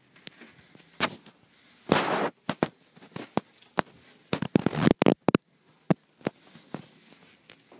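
Irregular sharp knocks and clicks, with a short rustle about two seconds in and a quick cluster of knocks near five seconds: handling noise and footsteps as someone carries a handheld camera through an empty, carpeted room.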